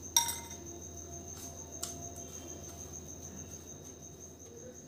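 A cricket chirping steadily in the background, with a sharp clink of a spoon against a glass bowl of batter just after the start and a fainter tap about two seconds in.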